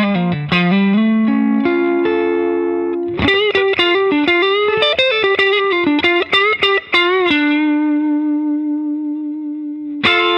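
Stratocaster-style electric guitar playing a lead through a pedalboard of effects pedals. It goes from picked notes and a held chord into a run of quick bent notes, then a long sustained note with vibrato. Near the end one note is struck and slides down in pitch.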